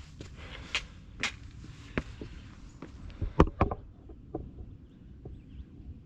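Hiking boots stepping over rocks on a rocky trail: irregular knocks and scrapes, with the loudest cluster about three and a half seconds in.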